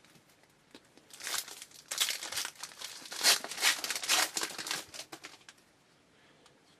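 A 2012 Bowman baseball card pack's wrapper crinkling as it is torn open, a dense run of crackles from about one second in to about five seconds.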